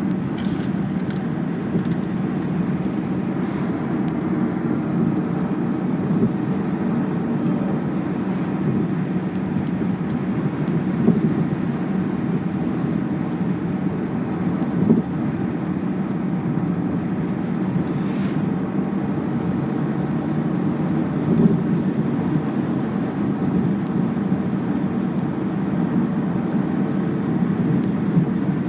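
Steady low rumble of a vehicle running, with a faint hum and a few light clicks.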